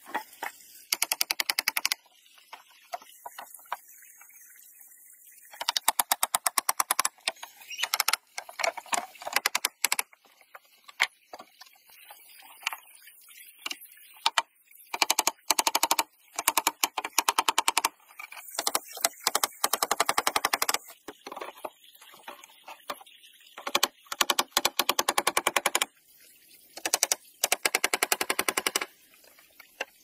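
Hammering on wooden boards in rapid runs of blows, many per second, coming in bursts of one to three seconds with short pauses between.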